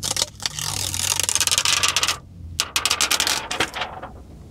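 Clear protective plastic film being peeled off a truck's large infotainment touchscreen, a dense crackling as the adhesive lets go, in two pulls with a short break about two seconds in.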